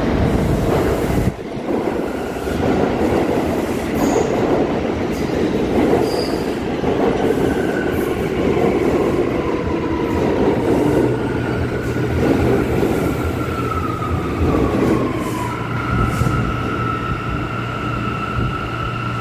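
R179 New York subway train pulling into a station: steady rumble of wheels on rails, with high squealing tones. About fifteen seconds in, a whine falls in pitch as the train slows to a stop. A steady high tone and a low hum follow as it stands.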